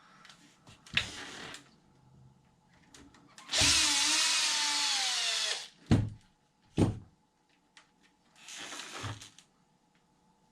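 Handheld power drill/driver run in short bursts, likely driving hex screws on the truck: a brief spin about a second in, then a longer run of about two seconds whose whine drops in pitch as it slows, and a short run near the end. Two sharp knocks come between the runs.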